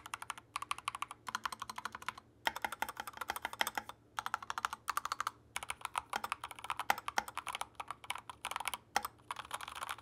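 Typing on a stock Yunzii KC68 mechanical keyboard fitted with Gateron Yellow linear switches: quick runs of keystrokes broken by short pauses.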